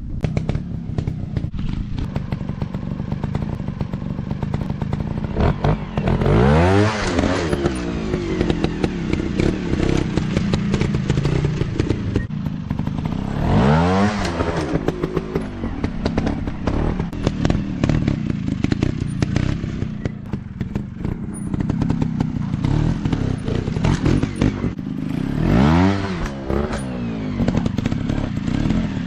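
Trail motorcycle engines running, rising and falling in pitch three times as the revs climb and drop, with scattered knocks and clatter.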